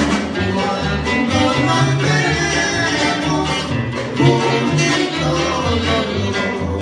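A band playing Mexican regional dance music, with a bass line moving under pitched melody instruments.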